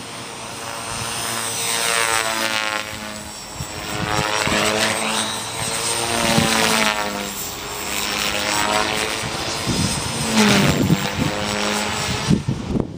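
450 Pro electric radio-controlled helicopter flying, its rotor and motor sound swelling and fading several times, with the pitch sweeping up and down as it moves around.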